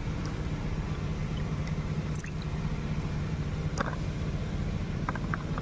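Peeled pointed gourds rinsed by hand in water in a clay bowl and set down in a clay dish: a few small splashes and soft knocks over a steady low hum.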